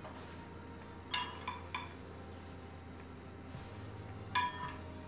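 Metal measuring cup clinking against a glass jar of rolled oats while oats are poured out and tipped into a mixing bowl: three light ringing clinks about a second in and a louder one near the end.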